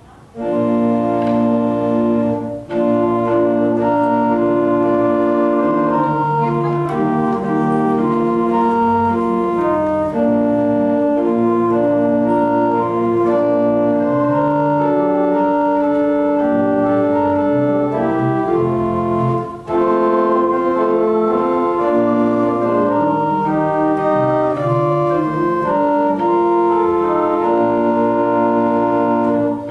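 Organ playing a slow piece in sustained chords, pausing briefly between phrases twice.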